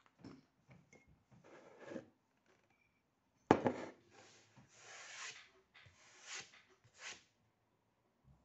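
A man vaping an electronic cigarette: a breathy draw on the mouthpiece, then several long, airy exhalations of vapour. A sudden loud thump about three and a half seconds in is the loudest sound.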